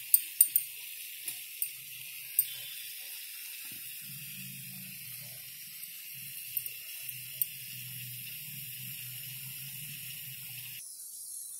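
Scattered sharp clicks and taps as grated coconut and coriander leaves are put by hand into a steel mixer-grinder jar, most of them in the first couple of seconds and two more about seven seconds in, over a steady hiss.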